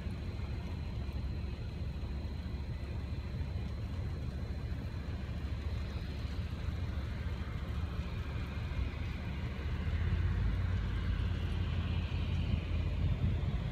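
A motor vehicle's engine running with a steady low rumble, growing louder about ten seconds in.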